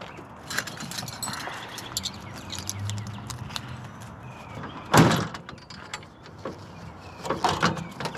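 Scattered knocks and clatter of objects being handled, with one loud thump about five seconds in and a quick run of knocks near the end.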